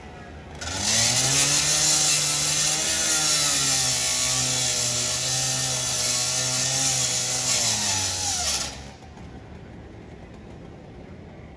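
Firefighters' gas-powered saw cutting into the steel body of a garbage truck. It revs up about half a second in and cuts for about eight seconds, a harsh hiss over the engine note, which wavers under load. Then it revs down and stops.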